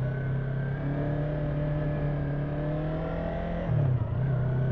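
Yamaha YZF-R3's 321 cc parallel-twin engine pulling as the bike accelerates, its note climbing slowly. The note dips briefly and picks up again about four seconds in, at a gear change.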